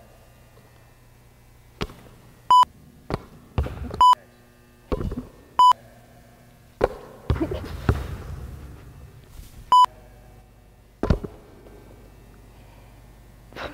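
Short, loud electronic beeps at one high pitch, four times at irregular intervals, with a few knocks and a dull thud in between.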